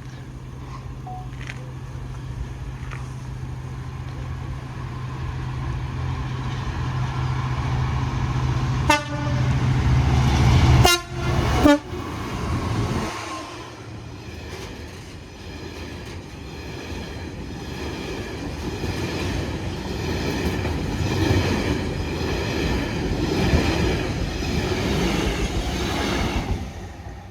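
Freight train passing close by: the locomotive's engine drones louder as it works hard ('thrashing'), its horn sounds twice, about nine and eleven seconds in, then the wagons rattle past with a rhythmic clatter over the rails until the train clears near the end.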